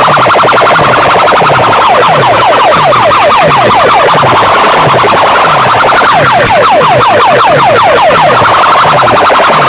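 Stacked horn-loudspeaker sound-system boxes blaring a siren-like effect at very high volume: a rapid, evenly repeating falling sweep, many times a second, over a deep falling bass pulse about twice a second.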